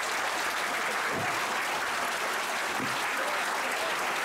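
A large audience clapping steadily, a dense, even sound of many hands.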